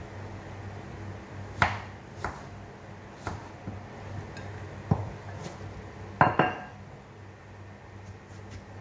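Kitchen knife cutting pieces of squash, with scattered sharp knocks and clicks as the blade and pieces hit the bowl and cutting board; the loudest knock, about six seconds in, leaves a short ring. A steady low hum runs underneath.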